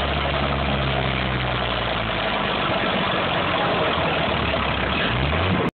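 International 955 XL tractor's six-cylinder diesel engine, open exhaust pipe with no muffler, running steadily at low revs with a deep drone. Near the end the revs rise briefly.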